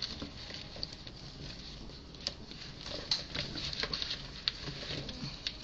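Hands tossing oiled acorn squash slices with herbs in a bowl: soft pattering with scattered light clicks.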